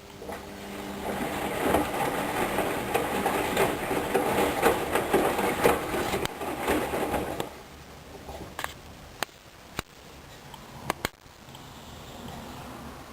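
Hoover Dynamic front-loading washing machine in the main wash of its duvet programme. The drum turns for about seven seconds with the motor running and the wet load churning and rattling, then stops. A few sharp clicks follow.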